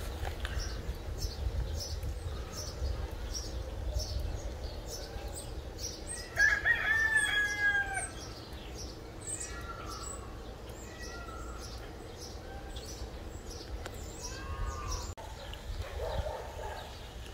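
A rooster crows once about six seconds in, one drawn-out call that is the loudest sound here, with softer calls after it. A steady run of high chirps repeats about twice a second underneath.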